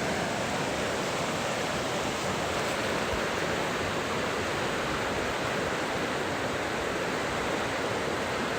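Fast-flowing river rushing steadily, a continuous even roar of water.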